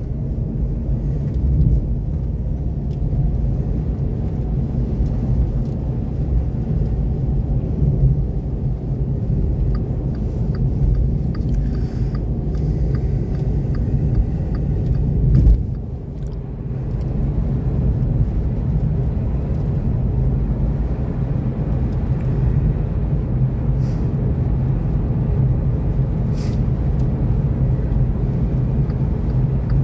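Steady low rumble of a Seat Mii electric car driving on a snow-covered highway: tyre and road noise from Nokian R5 winter tyres, with no engine sound. It swells briefly about fifteen seconds in, then drops for a moment before settling back.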